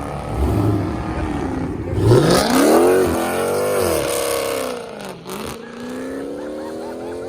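Muscle car engine accelerating hard with a loud exhaust: the pitch climbs steeply about two seconds in, falls off, then rises again near the end as it pulls away.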